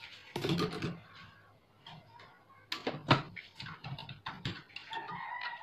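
Clicks, knocks and rattles of a CRT TV's main circuit board and its wiring being handled and lifted, with one sharp knock about three seconds in.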